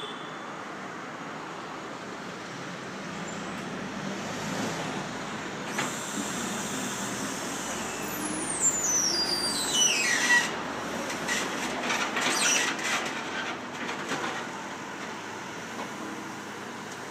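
Construction-site noise over a steady background hum of traffic and machinery. About eight seconds in, a high squeal falls steeply in pitch for two seconds or so, and a run of sharp metallic clanks and knocks follows over the next few seconds.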